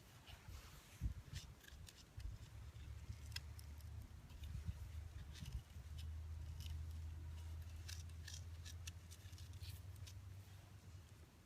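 Faint scattered clicks and scrapes of fingers pressing and packing hardening pine pitch mixed with charcoal into a knot hole in a wooden cup, over a low steady rumble.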